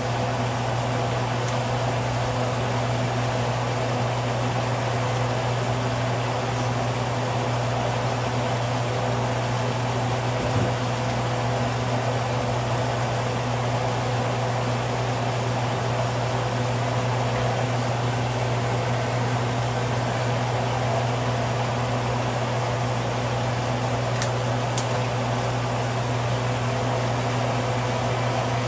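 Steady low hum over an even hiss, a fan or motor running, with a couple of faint clicks near the end.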